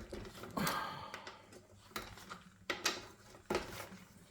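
Hand tools being picked up and handled: a scattered series of light clicks and clinks, with a short rustling scrape about half a second in.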